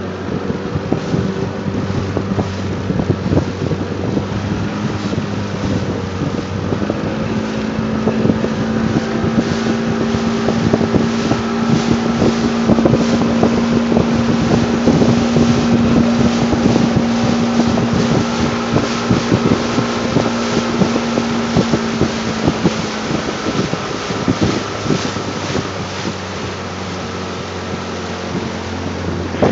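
A small motorboat's engine running at a steady cruising pitch, with repeated slaps of the hull on the chop and wind on the microphone; the engine note eases a little in the last few seconds.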